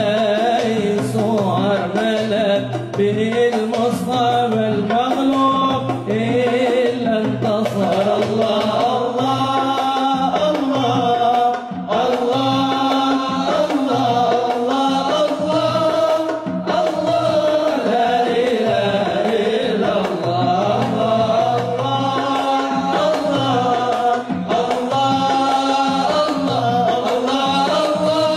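Arabic devotional song (qasida) sung in a melismatic, sliding style, with the voice repeating 'Allah, Allah, Allah', over a continuous percussion and music accompaniment.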